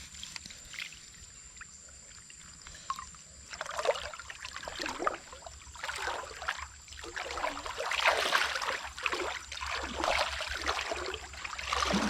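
Water splashing and trickling in irregular surges, starting about three and a half seconds in and louder in the second half.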